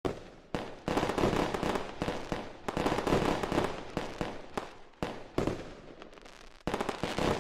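Aerial fireworks bursting: an irregular, rapid string of sharp bangs and crackles, several a second, each dying away with a short tail.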